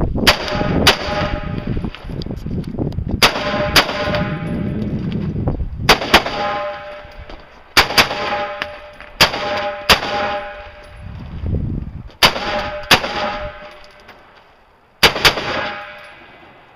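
Rifle shots fired in quick pairs, about seven pairs spread over some fifteen seconds, each pair followed by a metallic ringing that fades over about a second, the sound of steel targets being hit.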